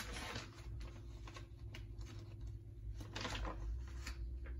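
Quiet room with a low steady hum and scattered soft clicks and rustles.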